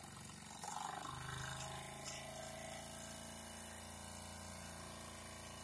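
Mamod toy steam traction engine: a burst of steam noise about half a second in as the lever on its boiler is worked, then a steady whirring hum as it runs.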